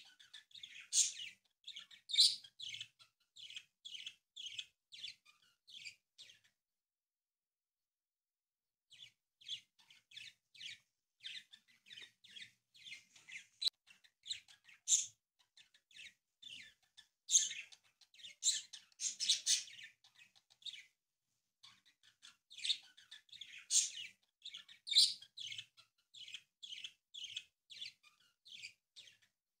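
Small birds chirping in long runs of short, quick chirps, about three or four a second, with a pause of a couple of seconds about a quarter of the way in.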